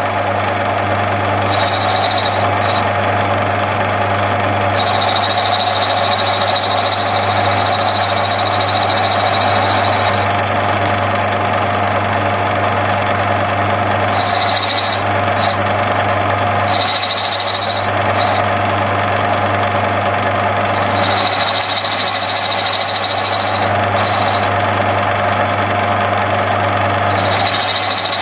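Lathe running steadily with its spindle in reverse while the cutter, swung along a radius by a ball-turning attachment, cuts the workpiece; a high-pitched whine from the cut comes and goes every few seconds over the machine's steady hum.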